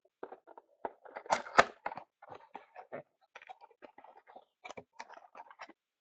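A rapid, irregular run of small clicks and rustles, like close-up handling, lasting about five and a half seconds and loudest about a second and a half in.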